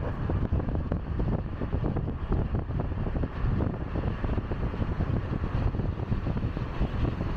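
Wind buffeting the microphone: a low, fluctuating rumble.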